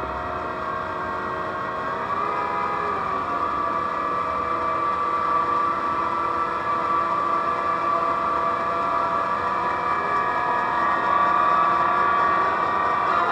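Case IH Magnum 380 Rowtrac tractor's six-cylinder diesel running as it drives slowly on its rubber tracks, with a steady high whine over the engine, growing louder as it comes closer.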